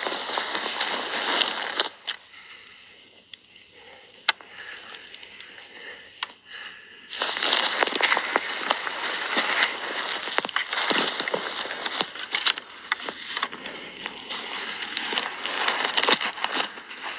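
Footsteps on a dirt road with clothing rustle and handling noise on a phone's microphone, quieter for a few seconds about two seconds in, then busier and louder.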